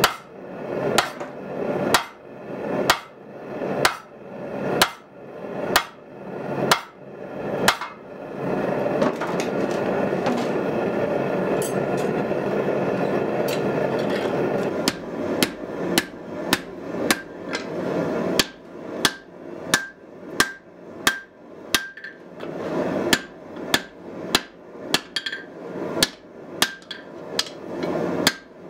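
Hammer blows on red-hot truck-spring steel, about one a second, at first on a swage block. Then comes a stretch of steady rushing noise with no blows. After it the hammering resumes faster on the anvil, with a high ring after each blow near the end.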